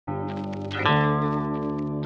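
Music: sustained guitar chords, moving to a new chord about a second in.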